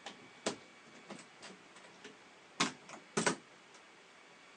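The metal latches and hardware of a Gator road case being worked open: a string of sharp clicks and clacks, the two loudest coming close together a little past halfway.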